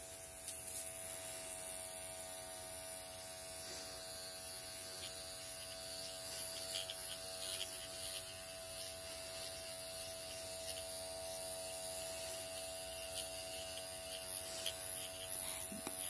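Dr. Pen M8 electric microneedling pen running with a steady electric hum, its 12-pin needle cartridge worked over the skin of the cheek, with a few faint ticks as it moves.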